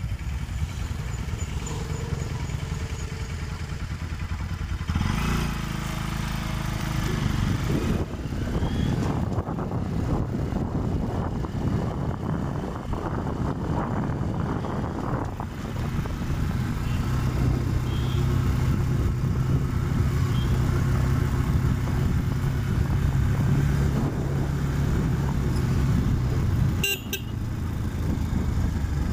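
Motorcycle engine running while riding along a hill road, with road and wind noise; the engine note shifts several times as the speed changes.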